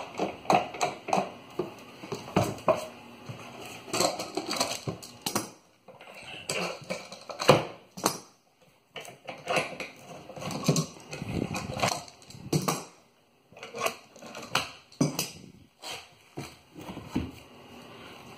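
Steel bar clamps being unscrewed and pulled off a plywood press: irregular metallic clanks and clicks, with a few knocks of wood as the clamps and boards are handled.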